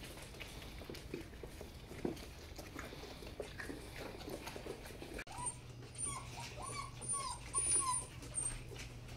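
Seven-week-old puppies jostling at a nursing mother dog: faint scattered ticks and small squeaks, then, about five seconds in, a run of about six short whimpers, each rising and falling in pitch.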